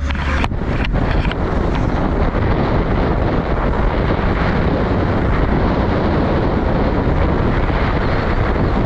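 Steady wind buffeting the microphone of a camera held out of a moving open-top jeep, with road noise mixed in. A few knocks come in the first second or so.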